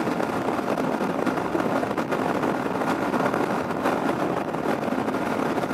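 Riding noise from a 2023 Yamaha Ténéré 700 at highway speed: a steady rush of wind and road noise with the parallel-twin engine running underneath.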